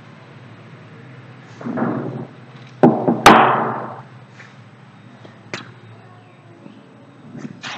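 Two sharp knocks about half a second apart near the middle, the second louder and ringing briefly, with a short scuffing sound just before them and a few faint clicks later.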